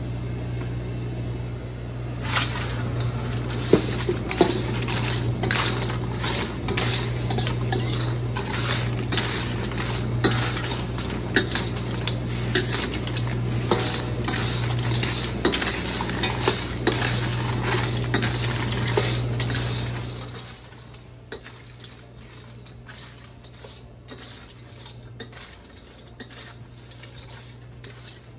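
Clattering and clinking of pots, dishes and metal utensils over a steady low hum. About twenty seconds in, the hum and most of the clatter drop away, leaving fainter scattered clicks.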